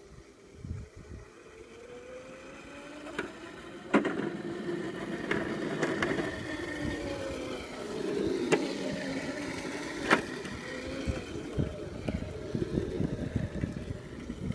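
Razor Crazy Cart electric drift kart driving on asphalt: its electric motor whines, rising in pitch over the first few seconds and then wavering up and down with speed, over the rolling noise of its wheels. There are a few sharp knocks, the loudest about four seconds in.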